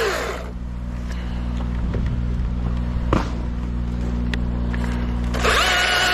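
Gas chainsaw dropping from full throttle to idle right at the start, then idling steadily, with a single knock about three seconds in. It revs back up to full throttle near the end.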